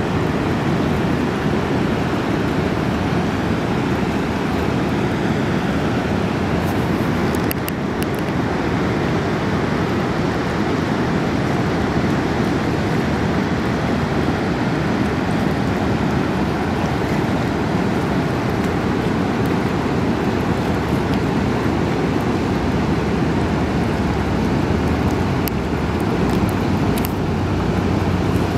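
Steady rushing of the upper Niagara River rapids, whitewater pouring over rocks.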